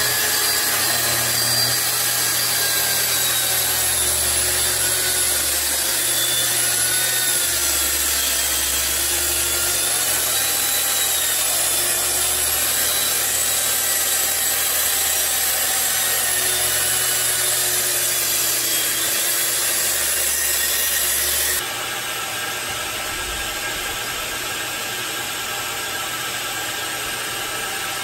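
Festool track saw ripping a long strip of 5/8-inch cabinet plywood along its guide rail, the motor running steadily under load through one long cut. About three quarters of the way through the saw stops, and a quieter steady hum, the dust extractor, keeps running.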